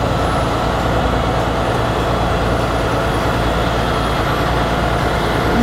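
Heavy recovery tow truck's diesel engine running steadily while its hydraulic boom lifts a large forklift off the ground.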